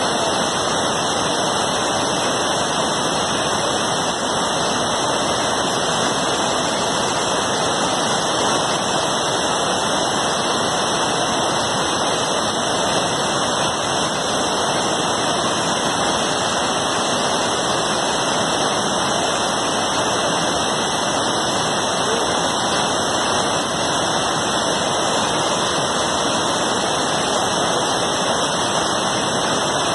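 Water released through open dam shutters rushing down a rocky spillway, a steady, unbroken rush of white water.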